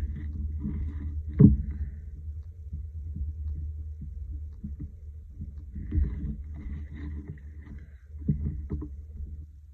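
Hands moving a collage card and pencil about on paper on a desk: light rustling and a few knocks, the loudest about a second and a half in, over a steady low hum.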